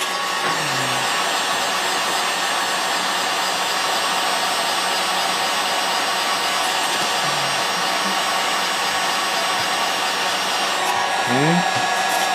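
Electric heat gun running steadily, blowing hot air onto a Depron foam sheet to soften it for bending.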